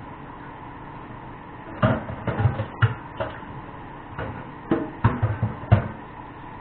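A run of sharp knocks and clatter from kitchenware, in two bursts of several hits each, starting about two seconds in and again past the middle, over a steady low hum.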